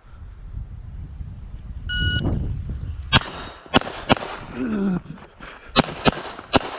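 A shot timer beeps once, about two seconds in. About a second later a Glock 44 .22 LR pistol fires three quick shots, then a pause, then a fast string of about four more near the end.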